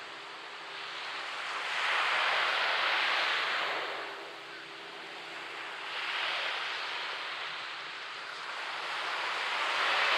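Waves breaking on a sandy beach: a steady hiss of surf that swells three times as waves crash, about two seconds in, around six seconds in, and near the end.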